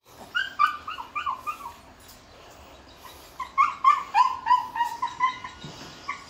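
Dog whining in short, high yips that drop a little in pitch, in two quick bouts of several calls each.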